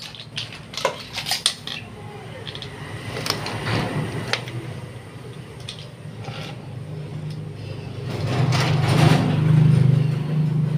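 A few sharp clinks, like dishes or cutlery, in the first second and a half. Then a low, steady engine-like hum builds from about seven seconds in and is loudest near the end.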